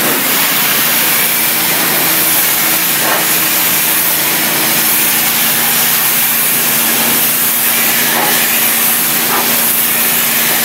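Hot-water pressure washer at 3000 psi blasting an exposed-aggregate concrete wall: a loud, steady hiss of the water jet. A steady low hum from the machine joins in about a second in.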